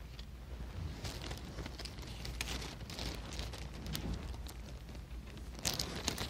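Quiet room noise: irregular rustling and scattered soft clicks over a low steady hum, with a louder cluster of rustles near the end.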